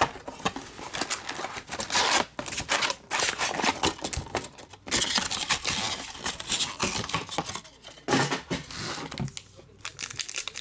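Foil trading-card packs crinkling and rustling as they are taken out of a cardboard hobby box and stacked, in irregular scratchy bursts with sharp clicks.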